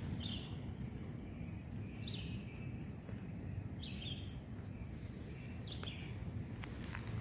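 A bird repeating a short, slightly falling call four times, about every two seconds, over a steady low rumble with occasional faint clicks.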